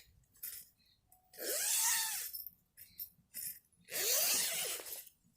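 Tent door zipper pulled open in two long rasping strokes of about a second each, with a few small clicks between.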